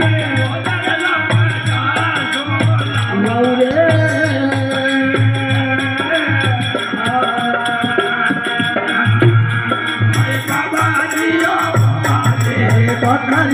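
Live Rajasthani devotional bhajan music: a dholak beating a steady pulse under harmonium, with a bright rattling percussion keeping time.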